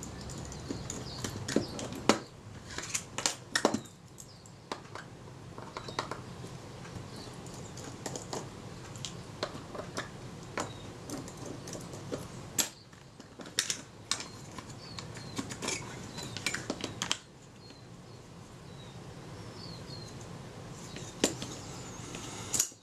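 Light irregular clicks and taps of small metal camera parts and a hand tool as the top shroud of a Kodak Retina IIIc is worked loose and lifted off. The clicks come thickest in the first two-thirds and thin out for the last few seconds, over a faint steady hum.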